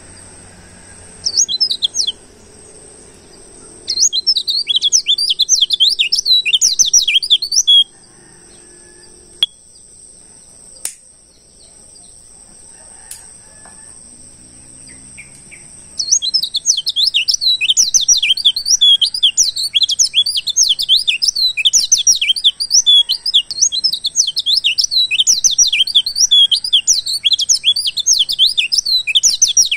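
White-eye (pleci) singing a rapid, high, twittering song in bursts: a brief burst near the start, a few seconds of song a little later, then continuous song from about halfway on. A lure song used to draw in wild white-eyes.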